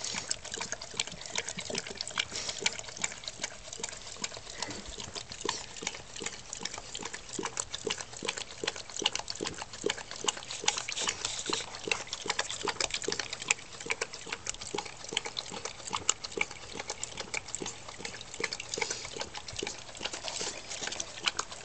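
A German shorthaired pointer–Chesapeake Bay retriever mix lapping coffee with cream from a plastic bowl: rapid, irregular wet tongue clicks and slurps, several a second.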